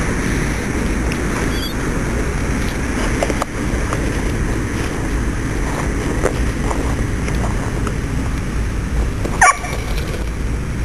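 A dog gives one short, sharp yelp about nine and a half seconds in, over a steady low rumble of outdoor background noise.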